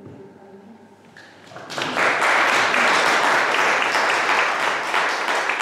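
Audience applauding. The clapping starts about a second and a half in, swells quickly and then holds steady.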